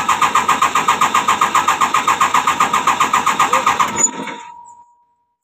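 Komatsu PC200-8 excavator's six-cylinder common-rail diesel being cranked by its starter: an even chugging of about eight pulses a second over the starter's whine, without the engine catching, stopping suddenly about four seconds in. This is the engine that will not run unless primed with petrol, with a rail-pressure-low fault logged.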